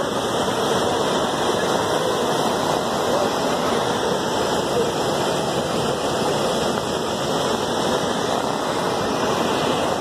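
A waterfall and its white-water rapids rushing over rock, a steady, even noise of falling water.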